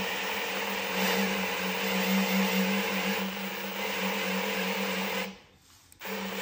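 Electric drill driving an oil-pump priming tool through the distributor hole of a small-block Chevy V8, running at a steady speed to build oil pressure. It stops for under a second about five seconds in, then starts again.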